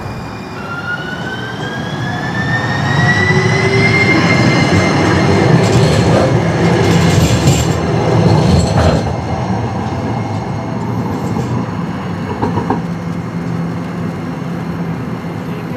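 Electric streetcar passing: a whine rises in pitch over the first few seconds as it picks up speed, then the rumble of its wheels on the rails swells, loudest around the middle, and eases off.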